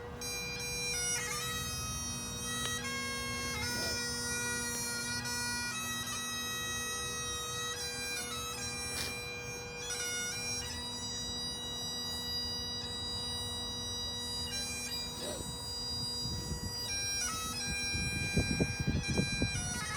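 Bagpipes playing a slow tune: a steady drone holds underneath while the chanter melody moves note to note above it. The lower drone drops out about 16 seconds in, and low rumbling bumps on the microphone come in near the end.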